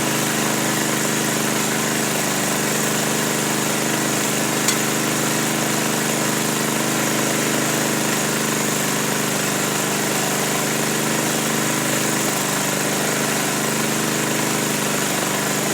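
A motor running steadily with an even hum and a constant hiss, and a single click about five seconds in.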